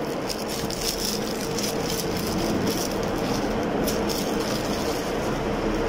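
Crinkling and tearing of shiny foil gift wrap as a present is unwrapped by hand, over a steady machine hum and whir.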